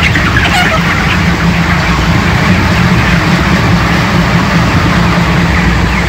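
A large flock of 28-day-old broiler chickens calling, with a few short high calls in the first second, over a loud, steady low rumble from the shed's ventilation fans.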